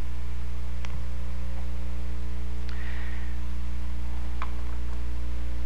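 Steady low electrical hum, with a few faint, sharp ticks scattered through it.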